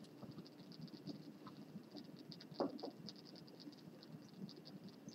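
Faint lab-room noise: a low hum and a fast, faint ticking, with two quick light knocks about halfway through as glassware is handled at the bench.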